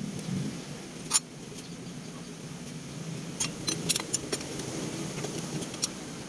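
Sharp metallic clicks and taps from a carburetor being handled and fitted by hand: one louder click about a second in, a quick cluster of several a little after three seconds in, and one more near the end.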